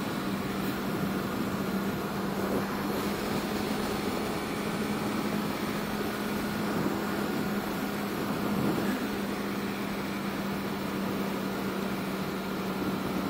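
Honda CB650F's inline-four engine running at a steady cruising speed, an even hum with no change in pitch, under a constant wash of wind and road noise.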